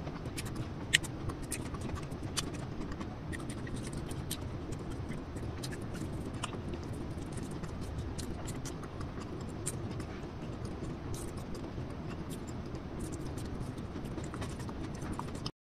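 Close-miked eating sounds: chewing and mouth clicks while eating soft steamed sweet potato with sautéed shrimp paste, along with fingers handling the food. These come as scattered sharp clicks over a steady low hum, and the sound cuts out abruptly near the end.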